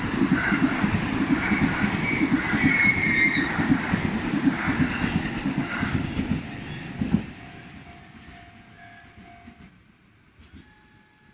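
Itsukaichi Line train passing over a level crossing, its wheels clacking rhythmically over the rail joints with some high wheel squeal. The sound cuts off sharply about seven seconds in as the last car clears. Faint steady tones follow.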